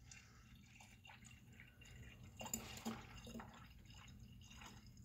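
Faint trickling and dripping of engine coolant being poured into the coolant reservoir, with small irregular drips.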